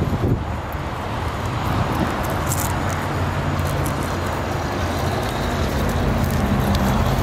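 A Traxxas TRX-4 Sport electric RC crawler driving over wood-chip mulch: its motor and gears run steadily with scattered crackles from the chips under the tyres, over a steady hum of road traffic.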